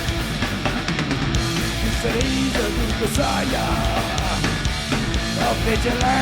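Live heavy rock band playing at full volume: distorted electric guitars, drums and bass, with sung vocal lines on top.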